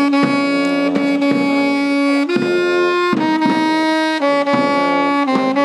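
Saxophone and brass instruments playing a slow funeral march: long held notes, one after another, changing about once a second.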